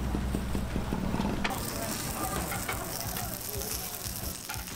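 Fried egg on crispy batter sizzling on a hot cast-iron sizzle plate. A steady low hum cuts off suddenly about a second and a half in.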